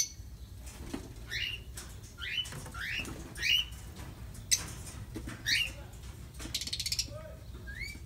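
Small parrots in an aviary calling: a string of short, rising chirps, one every half second to second, with a brief buzzy rattle near the end.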